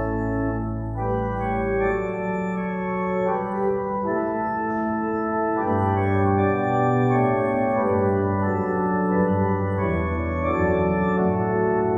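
Organ playing slow held chords over a low pedal bass line, the chords changing every second or two.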